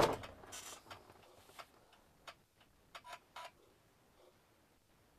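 A sharp bang right at the start that dies away quickly, then a few faint, scattered clicks and ticks with long quiet gaps between them.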